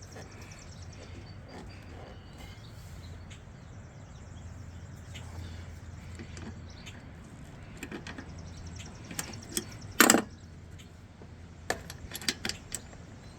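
A few sharp clicks and knocks over a steady low hum, the loudest a single knock about ten seconds in.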